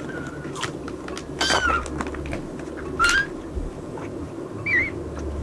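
Young kitten mewing: three short, high-pitched mews about a second and a half apart.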